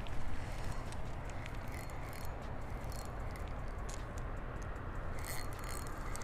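Steady outdoor background noise with a low rumble, broken by scattered light clicks and taps from handling the rod and reel.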